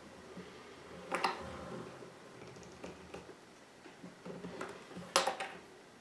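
Faint metal clicks and clinks from a single-stage reloading press being worked as a .223 cartridge is run up into a Lee Factory Crimp Die to crimp the case mouth. The loudest click comes about five seconds in.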